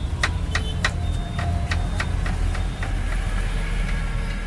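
Metal forks clinking against each other and against the plates as they are set into servings of chow mein: about eight light clinks with a brief ring, bunched in the first three seconds. A steady low rumble runs underneath.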